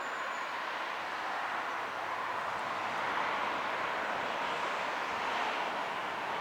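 Steady rushing outdoor background noise, with no clear siren tone.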